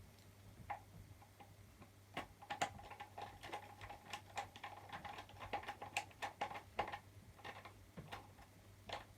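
Small screwdriver and wire ends working in an alarm panel's screw terminals: a run of irregular light clicks and ticks as the wires are terminated, starting about two seconds in.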